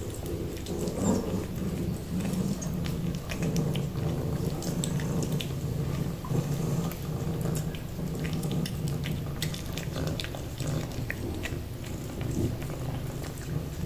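Cat eating broccoli from a hand: quick, wet clicks of chewing and licking over a steady low purr that swells and fades about once a second.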